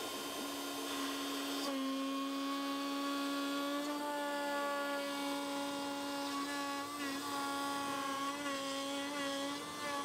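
X-Carve CNC router's spindle, a DeWalt 611 trim router, cutting plywood with a steady high whine. The sound grows fuller about two seconds in as the bit works the sheet, and its pitch wavers slightly under load later on.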